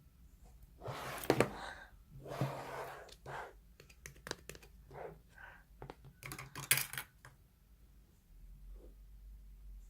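Slime being squished and stretched by hand: irregular sticky clicks and short squelches, loudest about a second in and again around seven seconds.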